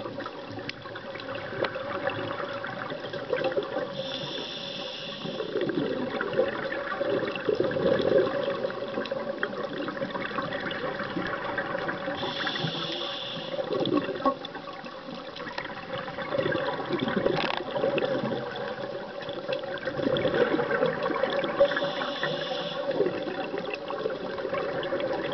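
Scuba diver breathing through a regulator, recorded underwater: a hiss of inhalation three times, about every eight to nine seconds, with bubbling and gurgling of exhaled air in between.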